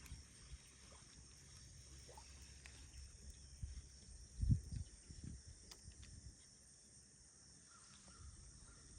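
Quiet shoreline ambience: a steady high hiss with a few soft low rumbles, the strongest about four and a half seconds in.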